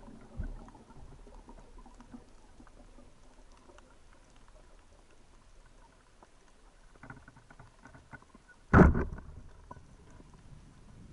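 Faint underwater crackling made of fine, irregular ticks, with one short, loud knock about nine seconds in.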